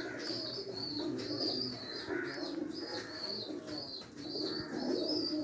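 Domestic pigeons cooing continuously, with short high chirps from birds repeating through it.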